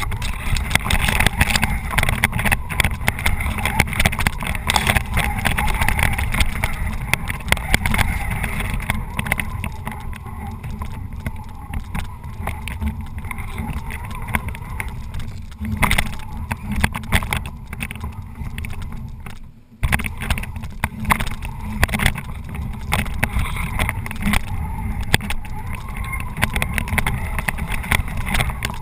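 Tamiya Bullhead RC monster truck driving through tall grass, heard onboard: a steady electric-motor and gearbox drone with grass brushing the body and frequent knocks over bumps, running on nearly flat batteries. The drive cuts out for a moment about twenty seconds in, then picks up again.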